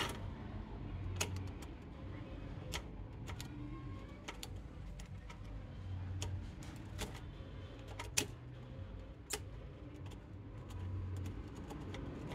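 Scattered sharp clicks and taps of hand tools on a TV power-supply circuit board while a faulty voltage regulator is being desoldered and removed, over a low hum that swells a few times.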